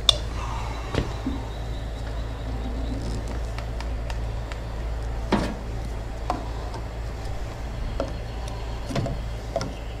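Scattered light clicks and knocks of PVC pipe and fittings being handled and dry-fitted, over a steady low hum.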